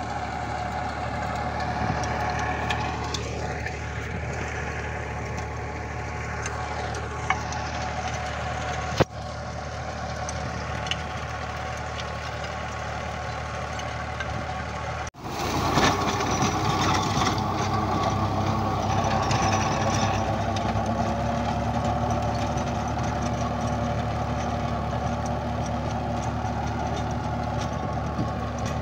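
Tractor engine running steadily while it pulls a rotavator working the soil into raised beds. The sound breaks off abruptly twice for a moment.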